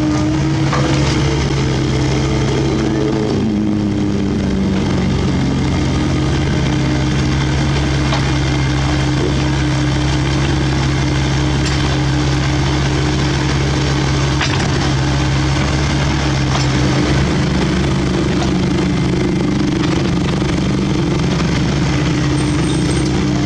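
CAT 307.E2 mini excavator's diesel engine and hydraulics running under load as it digs out a tree stump: a steady drone whose pitch falls and settles in the first few seconds.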